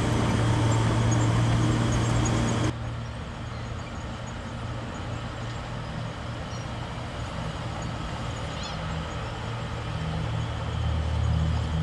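Bulldozer's diesel engine running steadily. A little under three seconds in, the sound drops abruptly to a quieter engine hum, which builds again near the end.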